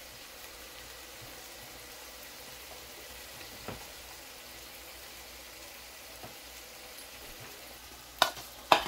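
Beaten egg frying in a pan, a steady soft sizzle. Near the end, two sharp clinks of a metal spoon against a bowl as fried potatoes are tipped out.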